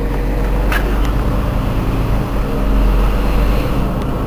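Engine of a Mercedes-Benz Citaro G C2 articulated bus idling with a steady low rumble while the bus stands stopped.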